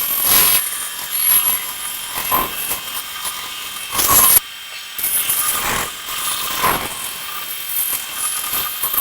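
Bandsaw running and cutting wood, the cutting noise swelling and easing in short passes over a steady motor hum, with abrupt changes about halfway through.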